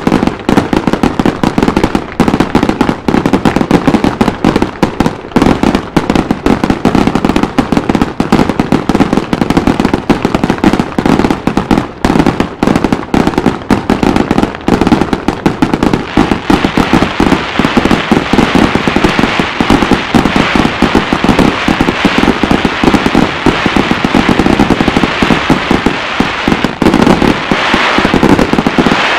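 Fireworks barrage: a dense, continuous stream of bangs and crackling, many shots a second, with more hiss and crackle in the second half.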